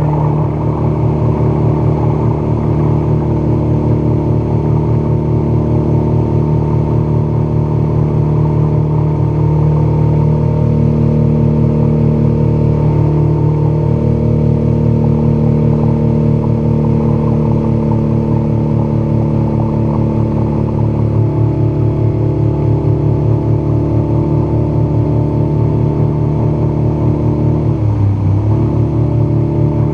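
Outboard motor running steadily at high throttle, pushing a small fishing boat at speed, with water rushing past the hull. Near the end the engine note briefly drops in pitch and comes back up.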